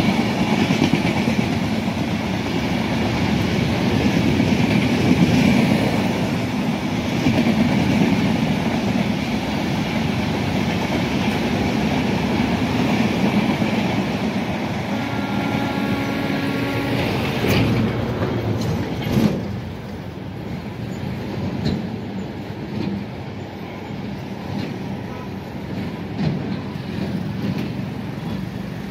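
Passenger coaches of an electric-hauled Indian Railways train rolling over the rails below, a steady rumble with clickety-clack of the wheels that falls away after about nineteen seconds as the last coach goes by. A steady tone sounds for about two seconds midway, with a couple of sharp knocks just after it.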